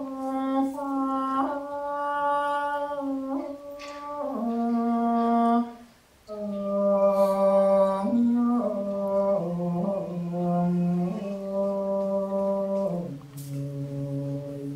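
Male vocalist singing a solo Thai classical vocal line without accompaniment: long held, ornamented notes stepping between pitches, with a breath break about six seconds in.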